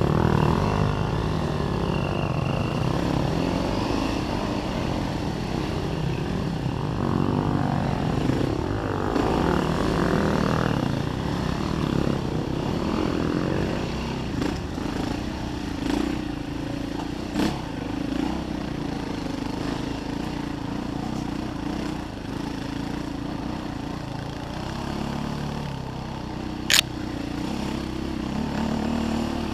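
KTM enduro dirt bike engine running close up on a trail ride, its revs rising and falling over and over. A few sharp knocks come through, the loudest near the end.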